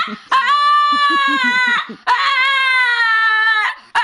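A dog giving long, drawn-out howls, two in a row of about a second and a half each, slightly falling in pitch, with a third starting near the end.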